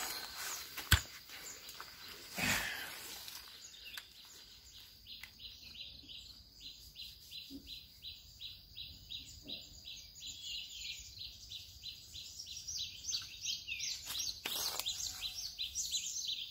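Rhythmic high chirping from wildlife, an even run of short chirps at about three a second, with a sharp knock about a second in.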